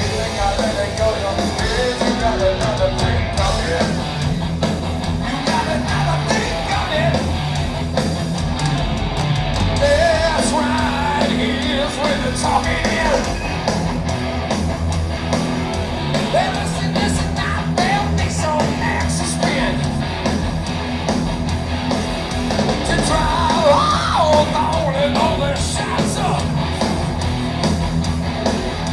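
Heavy metal band playing live: distorted electric guitars, bass and drums under loud yelled, sung vocals, heard through a rough audience bootleg recording.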